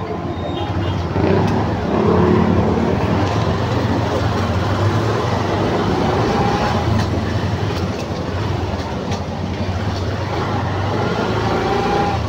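A vehicle's engine and road noise while driving, a steady low hum.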